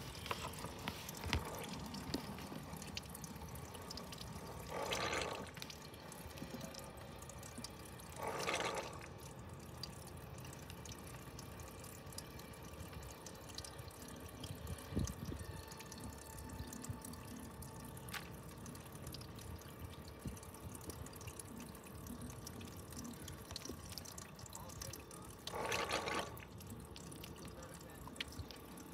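Meltwater running and dripping as a cooler is drained through a hose by a small battery-powered electric faucet pump, with three brief louder bursts of noise.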